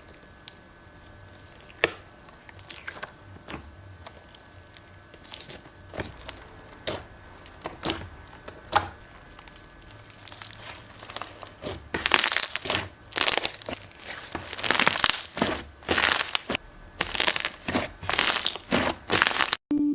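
Scattered sharp clicks and crackles, sparse at first, then from about twelve seconds in a dense run of crinkling, crushing bursts that stops abruptly near the end.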